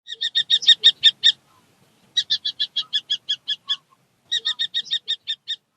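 A falcon calling: three rapid runs of sharp, repeated, high notes, each run of about nine to eleven notes lasting just over a second, with short pauses between runs.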